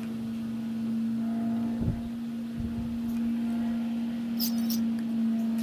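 Oil squeezed from a squeeze bottle into the oil galleries of a Mitsubishi 4G64 engine block, priming them before first start. There are a couple of soft handling knocks and a brief squirting splutter about four and a half seconds in, over a steady low hum.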